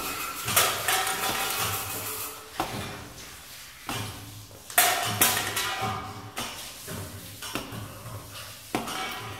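Improvised sound-art playing: irregular clinks, knocks and scrapes of small hard objects against the tower's concrete surfaces, some strikes followed by a short ringing tone.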